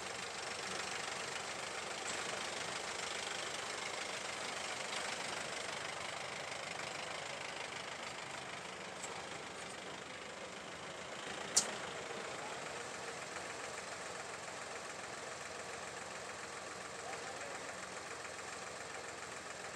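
Engine idling steadily, with a single sharp click about halfway through.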